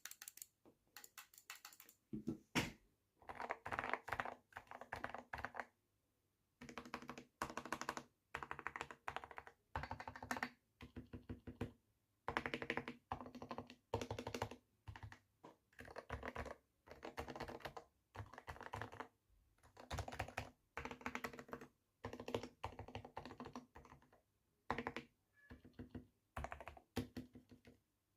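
Typing on a GK61 mechanical keyboard fitted with Gateron Silent Clear switches, whose dampened switches give quiet keystrokes. The typing comes in quick runs of keystrokes with short pauses between them.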